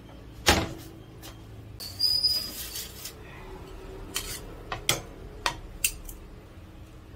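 Ceramic dishes being moved and set down on a tabletop: a sharp clunk about half a second in, a scraping slide with a short high squeak around two seconds, then several light clinks.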